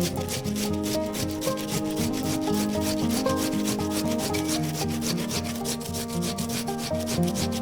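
Background music: held melody notes changing pitch step by step over a fast, even, scratchy percussion beat of about five or six strokes a second.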